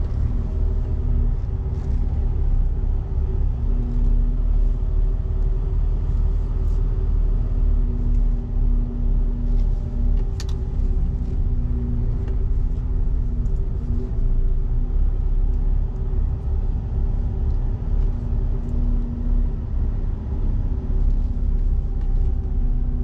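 Semi truck's diesel engine running at low speed, heard from inside the cab as a steady low rumble with a constant hum. Faint scattered clicks rise over it.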